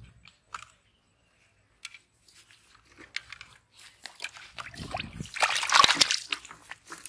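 Water and live fish, including an eel, tipped out of a plastic tub onto grass: a loud splashing gush of water about five seconds in, as the tub is upended.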